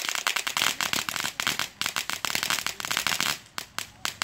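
Ground firework going off in a rapid run of crackling pops while it throws sparks. The pops stop for a moment about three and a half seconds in, then start again.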